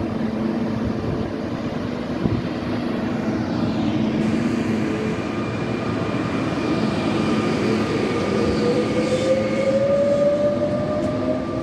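SNCF Z 23500 double-deck electric multiple unit passing close by with a steady running hum. In the second half its traction motors whine, rising in pitch as the train picks up speed.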